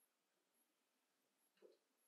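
Near silence: room tone, with one faint short knock about a second and a half in.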